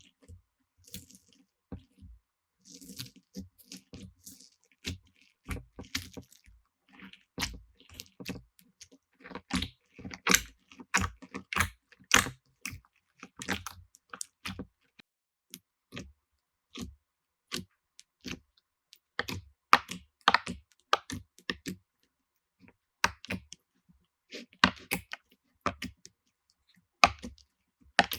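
Slime being squeezed and poked by hand, giving irregular sticky pops and crackling clicks in clusters with short pauses between.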